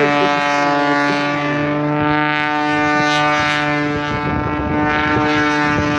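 Piston engine and propeller of a 400-horsepower modified Pitts S2S aerobatic biplane droning at a steady pitch, with a low part of the drone dropping away about four seconds in.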